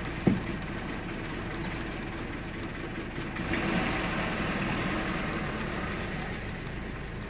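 2013 Ford Fiesta's engine idling steadily, heard from inside the cabin, with one sharp knock just after the start. A broader hiss comes in about three and a half seconds in.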